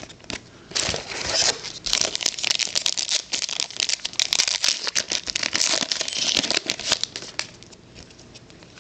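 Foil trading-card pack wrapper being torn open and crinkled: a dense run of crackling and rustling from about a second in until near the end, then fainter handling.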